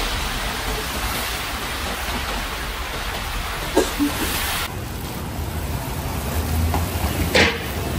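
Meat frying in deep hot oil in a large plov kazan: a steady sizzling hiss, quieter after about halfway, with a few short clicks near the middle and one near the end.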